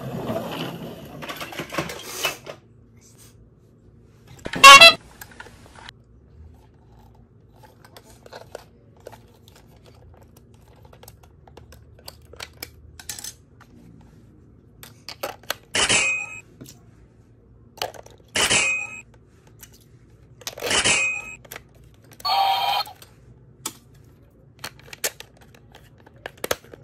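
Plastic toy train being handled: a loud clatter about five seconds in, then, after a long quiet stretch, three short plastic rattles a couple of seconds apart and a brief electronic tone from the toy near the end.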